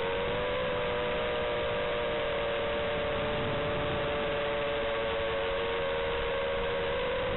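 FPV quadcopter's motors and propellers whining at a near-steady pitch, heard from on board, with a hiss underneath.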